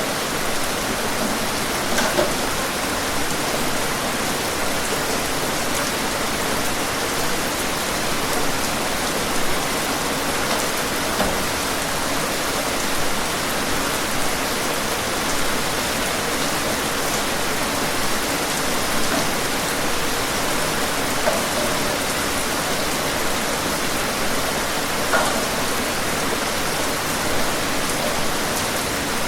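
Steady rain falling, an even hiss with occasional louder individual drop impacts.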